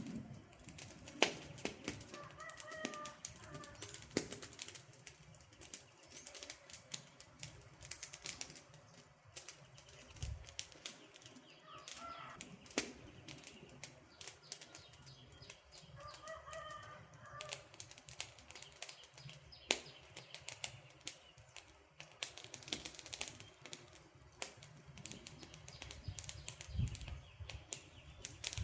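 Wood campfire crackling and popping, with irregular sharp snaps. A bird calls briefly several times over the fire.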